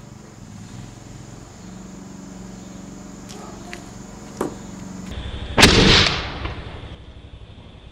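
Homemade soup-can tennis ball cannon firing once, about two thirds of the way through: a single sharp bang that fades quickly. A short sharp click comes a second or so before it.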